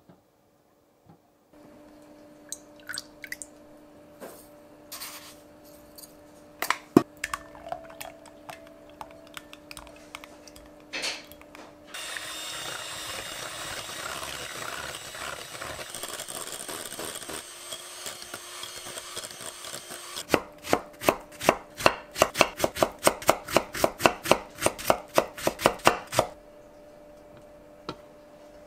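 Kitchen preparation sounds: scattered knocks and scrapes of a silicone spatula in an enamel pot, then an electric hand mixer running steadily in a glass bowl for about eight seconds, then a quick run of rhythmic clicks, about three a second, for several seconds.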